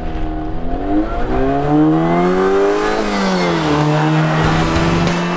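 2018 Jeep Compass Trailhawk's 2.4-liter Tigershark MultiAir four-cylinder accelerating hard from a launch. The engine note climbs for about two and a half seconds, drops about three seconds in as the transmission shifts up, then holds steady.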